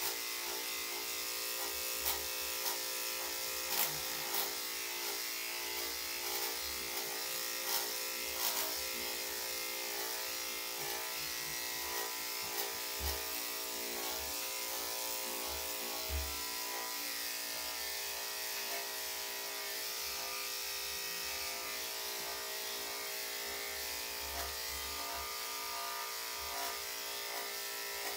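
Corded electric dog-grooming clippers running with a steady hum as they shave a Shih Tzu's coat on the chest and neck. A few light clicks in the first several seconds.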